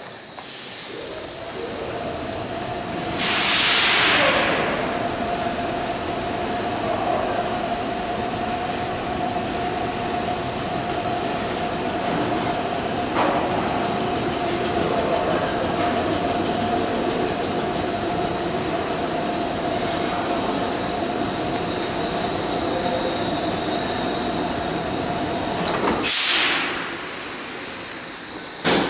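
Vintage subway cars at the platform, their equipment giving a steady tone under the train noise, with two loud bursts of air hissing: one about three seconds in and one near the end. A sharp clack just before the end.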